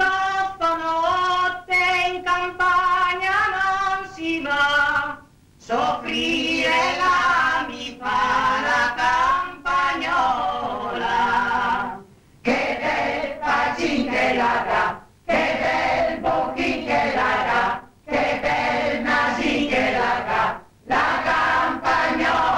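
A choir singing in long phrases with short breaks between them.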